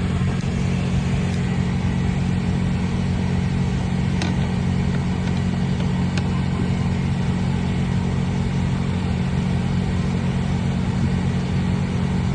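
Steady hum of the 2003 Acura TL's cabin blower fan running on high while it pushes little air through a clogged cabin filter. There are a couple of faint clicks from plastic trim being handled.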